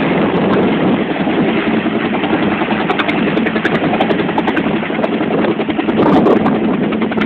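Bell 212 helicopter hovering just off the ground during takeoff: its two-bladed main rotor beats in rapid, even pulses over a steady tone from its twin PT6T turboshaft engines.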